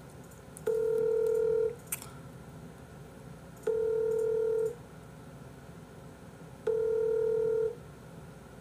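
Telephone ringback tone of an outgoing call: three steady one-second tones, each three seconds after the last, the Korean ringing cadence. The called phone is ringing and has not yet been answered. A small click sounds just after the first tone.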